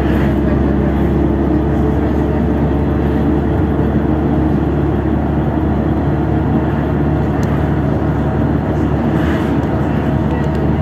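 Steady engine drone and road noise inside a LiAZ 6213.65 articulated city bus cruising along a highway. An oncoming truck whooshes past at the start, and another passing swell comes about nine seconds in.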